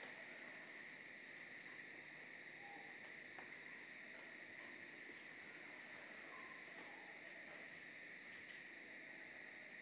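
Faint, steady chorus of crickets chirping, a night-time insect ambience, with a few faint short chirps from another creature.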